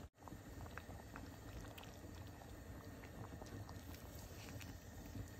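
A pot of oxtail in thick gravy simmering faintly, with soft bubbling and scattered small pops. The sound cuts out for an instant right at the start.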